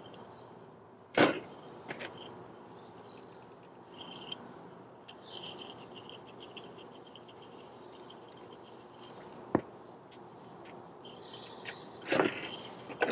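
Soft, rapid rattle of dry rub being shaken from a plastic spice shaker bottle over a raw roast, between a few sharp knocks as the roast and bottle are handled on a wire rack and tabletop. The loudest knock comes about a second in and another near the end.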